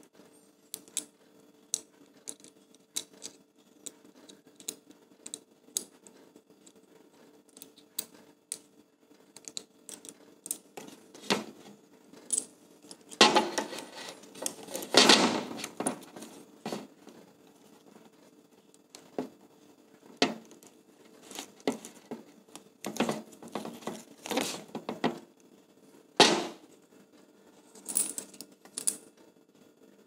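Small clicks, taps and rattles from handling a camera quick-release plate and its small metal 1/4-inch screws, scattered throughout, with a few louder stretches of handling noise about halfway through and near the end.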